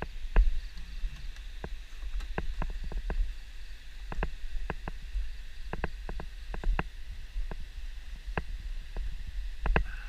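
Irregular knocks and rattles over a steady low rumble, as a motorbike rolls slowly over a rough dirt track.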